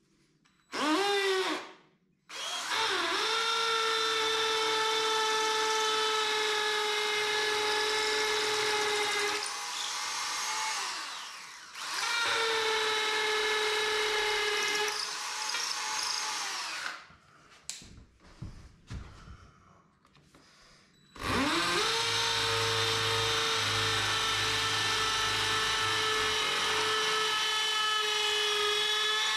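Hand-held electric drill boring into a plastered wall. There is a short burst first, then three long runs of several seconds each. The motor whine rises as it spins up at each start and falls away when it stops, and a few light clicks come in the pause before the last run.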